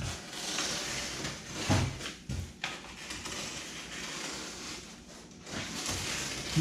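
Paper rustling and scraping as a paper pattern is creased and trimmed inside a foam kayak hull, with a few light knocks a couple of seconds in.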